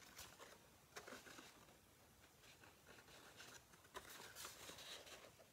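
Faint rustling and light taps of cardstock being handled and folded, with a soft click about a second in and another near four seconds.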